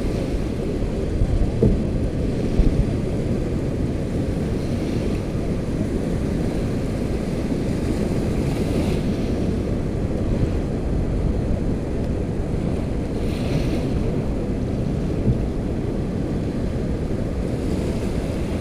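Wind rumbling on the microphone over small shore-break waves washing up the sand, the wash rising to a soft hiss every few seconds.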